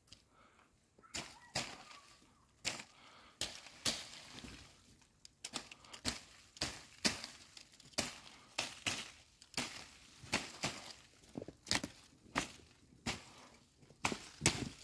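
Footsteps crunching in fresh, deep snow at a steady walking pace, starting about a second in.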